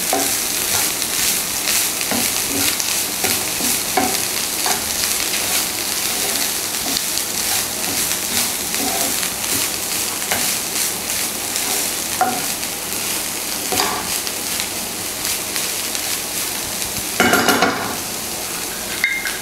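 A wooden spatula stirs and scrapes a banana flower and cooked green gram stir-fry around a non-stick frying pan over a steady sizzle. The stirring stops shortly before the end, leaving the sizzle.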